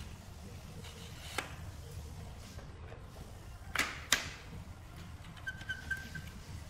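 Hard plastic clicks and knocks as twin adhesive cartridges are fitted into a dual-cartridge dispensing gun. There is one click early, and two sharp clicks about four seconds in are the loudest. A faint short squeak comes near the end.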